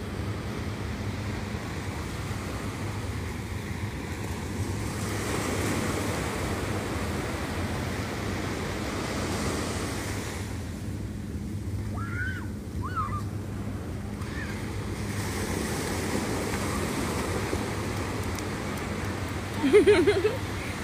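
Sea surf breaking and washing up a sandy beach, swelling twice as the larger waves come in, with some wind on the microphone. Just before the end, a young child gives a short, loud cry.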